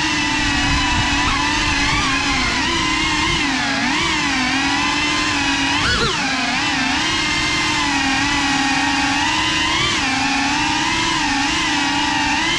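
Small FPV quadcopter's motors and propellers buzzing at a steady high pitch, with short dips and surges in pitch as the throttle is worked, the sharpest about six seconds in.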